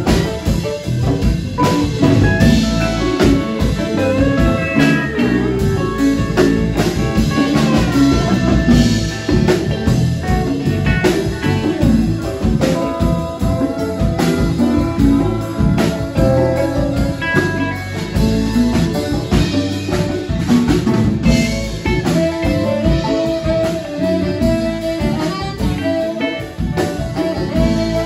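Live band playing an instrumental: pedal steel guitar with sliding notes over electric guitars, bass guitar and drum kit.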